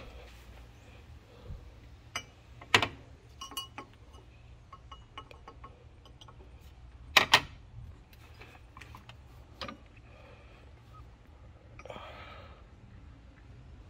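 Scattered metallic clicks and clinks of tools and parts being handled during a high-pressure fuel pump swap. The loudest is a quick double knock about seven seconds in.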